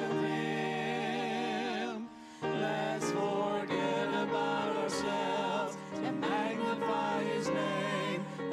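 A small group of mixed voices singing a church song together through microphones, with vibrato on the held notes, over a steady held accompaniment. The singing breaks briefly about two seconds in.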